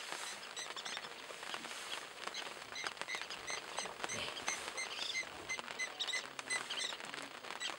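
African wild dogs feeding on an impala carcass: many small clicks and crackles of tearing and chewing, with many short, high chirps scattered over them.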